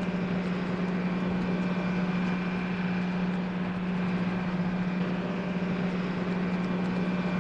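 NASA crawler-transporter running: a steady low hum with an even hiss over it.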